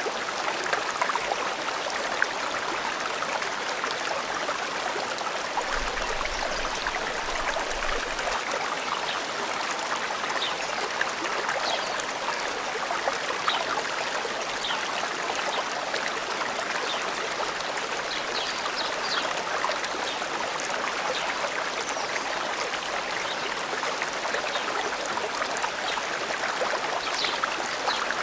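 Forest stream flowing steadily, a continuous splashing, burbling rush of water, with a few faint, short high bird chirps now and then.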